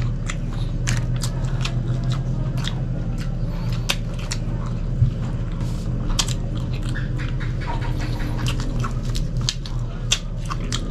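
Close-miked chewing with many short, wet mouth clicks and lip smacks, over a steady low hum.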